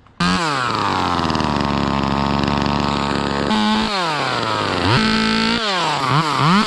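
Two-stroke chainsaw starting up with a sudden loud onset, its pitch falling from high revs to a steady idle, then revved up several times, in quick blips near the end.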